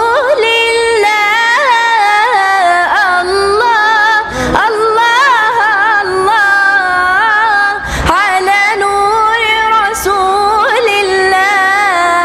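A young female voice singing Islamic inshad solo, drawing out long, ornamented melismatic phrases that waver and bend in pitch, with brief pauses for breath.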